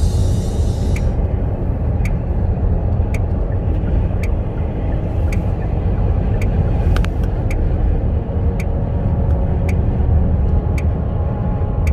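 Car driving along a freeway: a steady low rumble of road and engine noise, with a faint tick repeating about once a second.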